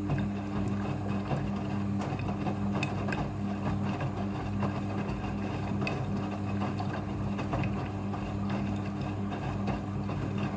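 Front-loading washing machine running during its rinse, with a steady motor hum and a rattling, watery noise over it. The sound starts and stops abruptly.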